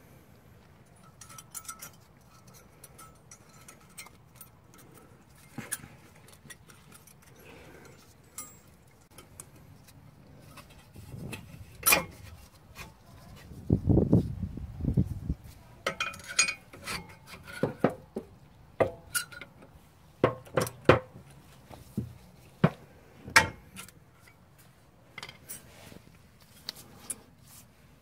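New thin steel brake-pad clips being pressed and snapped into a 2005 Toyota Corolla's front caliper bracket: a string of light metallic clicks and taps, busiest in the middle and later part, with a couple of dull knocks near the middle.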